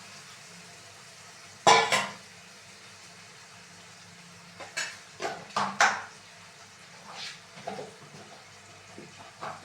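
Pots, dishes and utensils clattering as they are handled. There is a loud double clank about two seconds in, a run of clinks and knocks around five to six seconds, then a few lighter ones.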